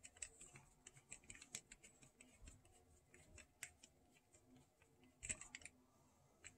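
Faint, scattered clicks and light scraping of a small screwdriver turning a screw into the plastic voice-box housing of a vintage talking G.I. Joe, with a short cluster of louder clicks near the end.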